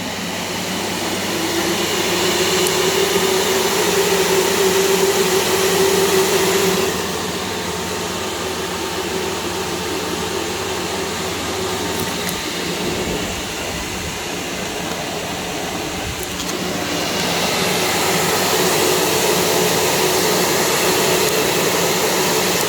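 A 3D-printed fume extractor's fan running with a steady whoosh and hum. It grows louder about a second in, drops back about seven seconds in, and rises again around seventeen seconds in.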